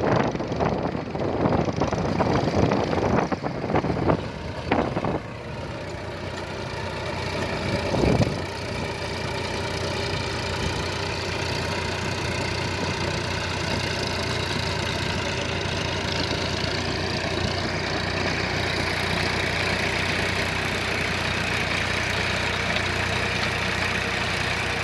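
Massey Ferguson Dyna Track 246 tractor's diesel engine running steadily. Wind buffets the microphone for about the first five seconds, and there is a single thump about eight seconds in.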